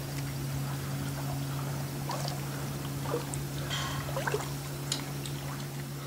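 Water trickling and splashing with small irregular drips and clicks, over a steady low hum.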